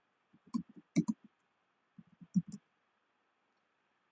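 Computer keyboard typing: a few short bursts of keystrokes as a command is typed in and entered.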